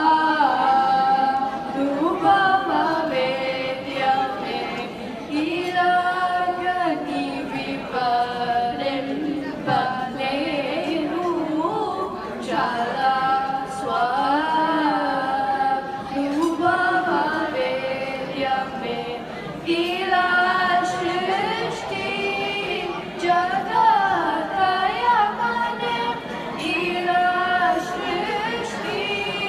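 Two girls singing together into handheld microphones, a melodic line of long held notes that bend and slide between pitches.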